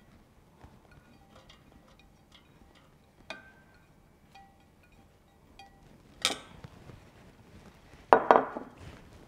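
A spoon tapping and scraping against a ceramic plate over a stainless steel mixing bowl in light clinks, then a sharp louder clank about six seconds in and a short rattling clatter of dishware near the end.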